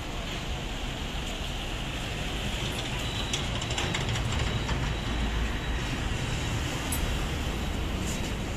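Steady outdoor road-traffic noise, a low rumble under a hiss, with a faint thin high whine joining about three seconds in.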